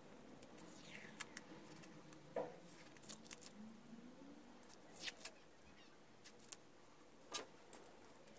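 Faint crinkling and small scattered clicks of blue masking tape being peeled off a painted vice jaw and scrunched up, with a few short scraping peels.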